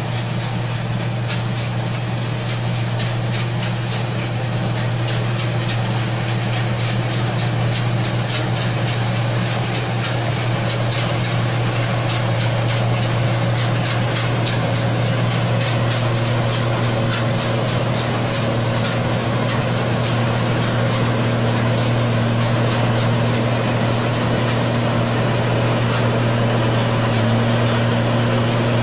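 Engine of a paddy machine running steadily under load, a constant low drone with a fast, even mechanical rattle over it.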